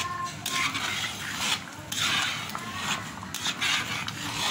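A spoon scraping and stirring thick wheat halwa batter in a pan, in repeated rasping strokes about once a second.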